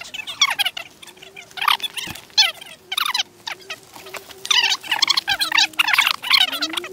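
A chorus of rapid, overlapping chirping animal calls in irregular bursts, with a faint steady hum underneath.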